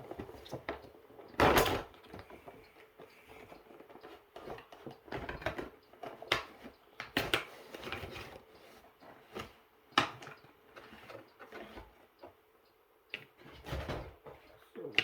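A cardboard model-car box and its plastic packaging being handled and opened by hand: irregular rustling, scraping and light knocks, with a louder burst about a second and a half in and sharp clicks later on.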